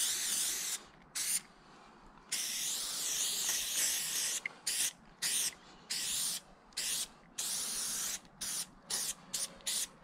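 Aerosol spray paint can hissing as paint is sprayed, in on-off bursts: a few long sprays of one to two seconds, then a run of short quick bursts in the second half.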